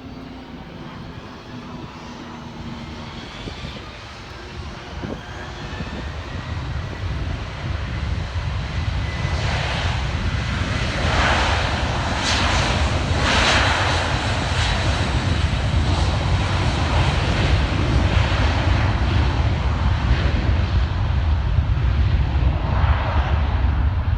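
Jet airliner passing close by on the runway, its engine noise building steadily into a loud low rumble with rushing noise, a thin whine sliding in pitch in the first several seconds.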